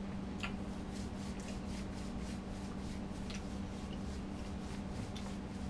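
A steady low hum in a kitchen, with faint scattered clicks and rubbing sounds over it.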